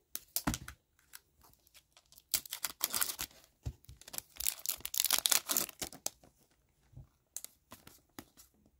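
A trading-card pack's wrapper crinkling and tearing open in a few rustling bursts. Near the end come a few light ticks as the cards are handled.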